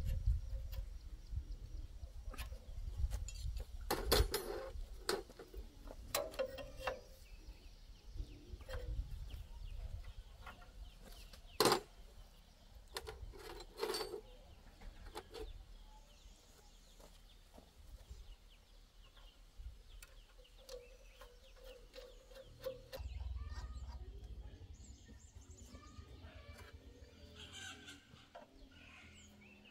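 Scattered metal clinks and knocks of wrenches working on a walking tractor's single-cylinder diesel engine and of tools in a metal toolbox, with no engine running. Chickens cluck at times in the background.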